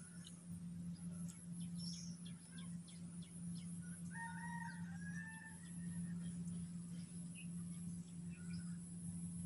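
Faint outdoor ambience: a steady low hum and a high hiss, with scattered short bird chirps. About four seconds in, a distant rooster crows once, a held call of about a second and a half.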